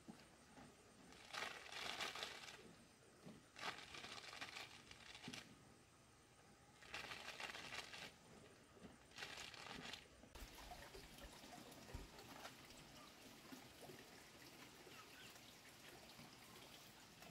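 Dried cassava pieces poured from a plastic bucket onto a tarp: four faint rustling rushes of about a second each, then only faint background.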